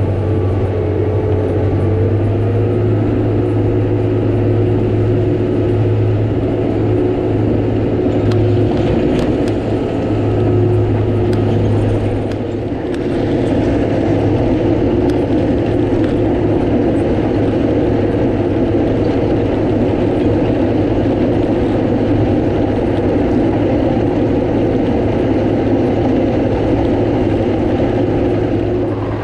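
Komatsu GD655 motor grader's diesel engine running steadily while the blade cuts and spreads dirt on the road, a continuous drone with a brief dip about twelve seconds in.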